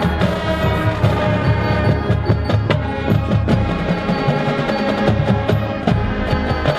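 Marching band playing: sustained wind chords over drums and percussion, with frequent sharp hits.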